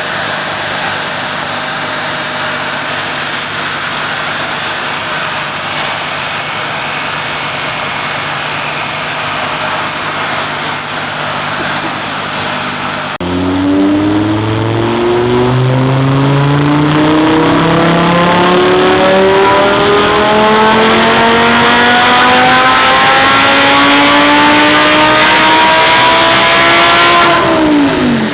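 Audi R8 V10 engine with a titanium exhaust on a chassis dyno, first running at a steady speed, then about halfway in a loud full-throttle pull with the revs climbing steadily for about fourteen seconds. Near the end the throttle is shut and the revs fall sharply.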